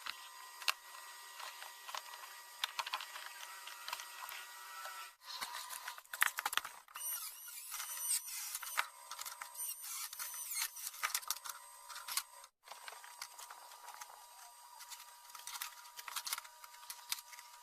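Scattered sharp clicks and scraping of hand tools working on a steel frame, in three pieces with abrupt cuts between them.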